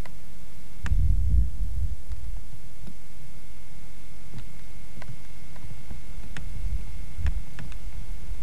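Wind buffeting a camcorder microphone as a low, uneven rumble, swelling about a second in and again near the end, over a faint steady high tone and a few light clicks.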